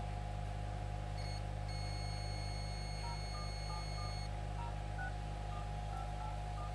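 Steady electrical hum with a string of short electronic beeps at changing pitches, and a long high-pitched beep about two seconds in.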